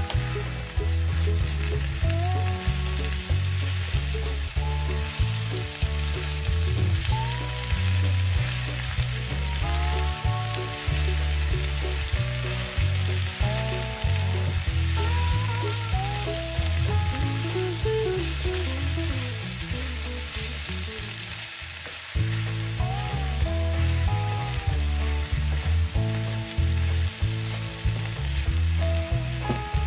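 Spinach, red onion and red pepper sizzling in a frying pan as a wooden spoon stirs them, with background music and its bass line.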